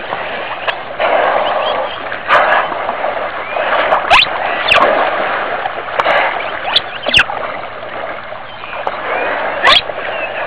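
Whales of a pod milling at the surface close by: water splashing and sloshing, broken by about half a dozen sharp puffs as whales blow, with high whistled calls gliding up and down.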